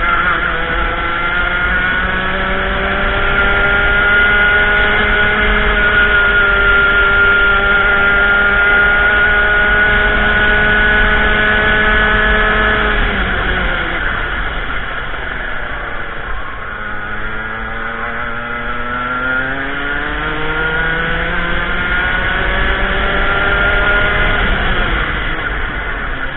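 Racing kart engine heard from on board at racing speed. It holds high, steady revs, drops sharply about halfway through as it slows for a corner, then climbs back up under acceleration before dropping again near the end.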